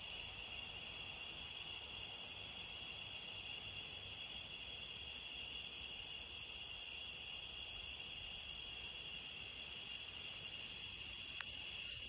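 Dense, steady high-pitched night chorus from the trees, sitting in two tones that never let up. The recorder calls it a chorus of tree frogs.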